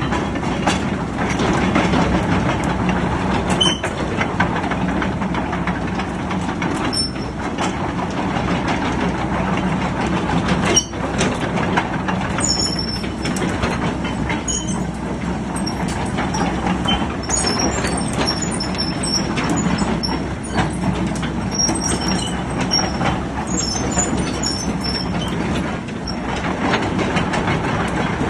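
Komatsu hydraulic excavator running, its diesel engine holding a steady hum, with scattered metallic clanks and short high squeaks from the working machine and a sharp knock about a third of the way in.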